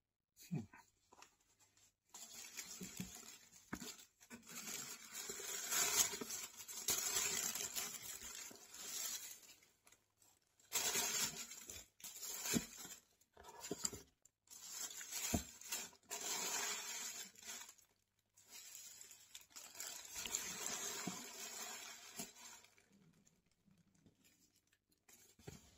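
Plastic wrap, bubble wrap and tissue paper packaging crinkling and rustling as it is handled and pulled out of a cardboard shoe box, in several bursts of a few seconds with short pauses between.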